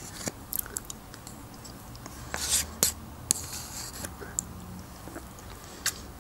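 A metal spoon scraping and clicking against the inside of a plastic yogurt cup as yogurt is scooped and eaten: a scatter of short clicks, with a longer scrape and a sharp click about two and a half seconds in.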